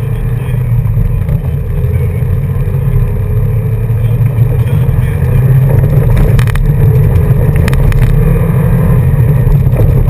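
A car driving on a gravel road, heard from inside the cabin: engine and tyre rumble that grows louder as the car picks up speed over the first few seconds, then holds steady. A few brief clicks come a little past the middle.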